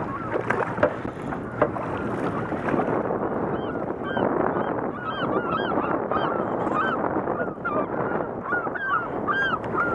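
Birds honking in a rapid run of short, arched calls, several a second, starting a few seconds in, over a steady rush of wind and water.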